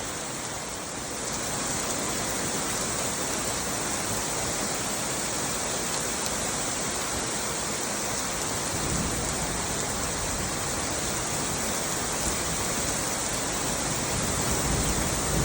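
Heavy rain pouring down in a thunderstorm, a steady even hiss.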